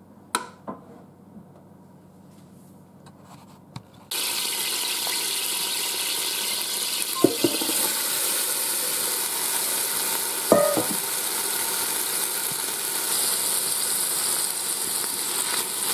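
Green beans sizzling in hot oil in the Ninja Foodi's inner pot on sear/sauté mode. The sizzle starts suddenly about four seconds in and holds steady, with a couple of sharp knocks against the pot.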